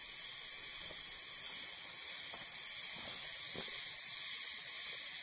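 A steady high-pitched hiss, with a few faint rustles of a taslan-fabric poncho being handled.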